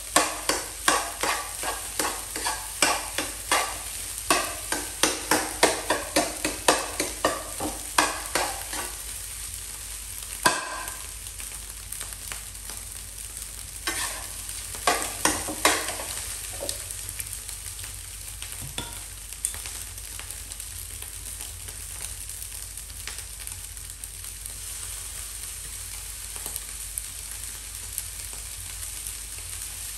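Fried rice stir-frying in a nonstick pan over a gas flame: a spoon scrapes and turns the rice in quick strokes, about two or three a second, over a steady sizzle. A single knock comes about ten and a half seconds in and another short run of strokes comes around fifteen seconds. After that it is mostly the sizzle with a few light taps.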